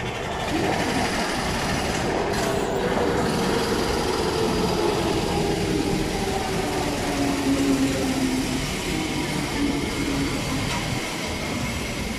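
SMRT C751B electric metro train pulling into a station, with the rumble of wheels on rail and a motor whine that falls in pitch as the train brakes to a stop.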